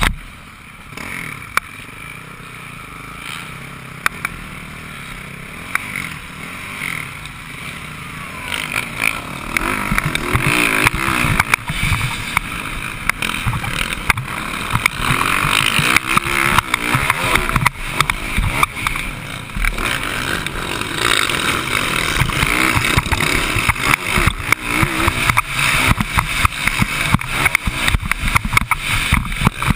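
Motocross dirt bike engine heard from a camera mounted on the bike, revving up and down as it rides the track, with frequent knocks. It is quieter for the first several seconds and gets louder from about nine seconds in.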